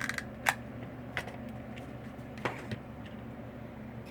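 Hot glue gun being worked on a circuit board: a few sharp plastic clicks, loudest about half a second in, a few more about one and two and a half seconds in, over a low steady hum.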